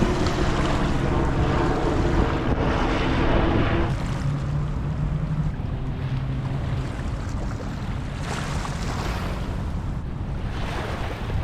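Wind buffeting the microphone over surf on a beach, with a steady low hum through the first few seconds.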